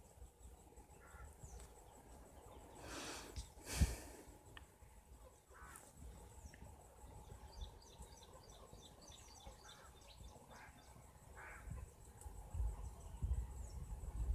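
Faint handling of the jet pump motor's parts being reassembled, with a sharp click or knock a little before four seconds in. Faint high bird chirps in the background through the middle.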